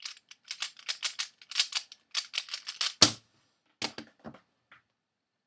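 Dayan Zhanchi 3x3 speedcube being turned fast, its layers clicking in quick runs, then a single louder thud about three seconds in and a few lighter knocks after it.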